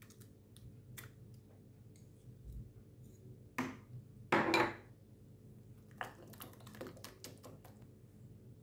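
A metal whisk and kitchen utensils clinking against a ceramic bowl: faint light clicks, then a louder clatter about three and a half to five seconds in as the whisk is set down in the bowl, followed by a quick run of soft clicks.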